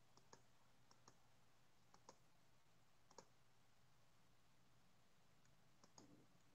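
Near silence with scattered faint computer mouse and keyboard clicks, some in close pairs.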